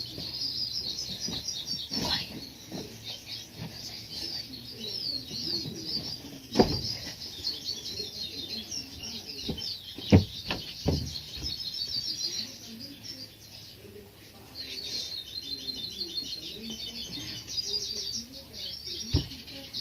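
Small birds chirping in a fast, busy chatter that eases off briefly about two-thirds of the way through, with a few sharp knocks scattered among it, the loudest about ten seconds in.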